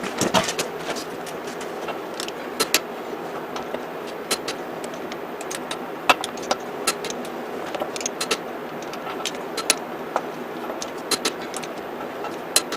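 Irregular sharp metallic clicks and clinks of a torque wrench and socket working on wheel lug nuts, over a steady background noise.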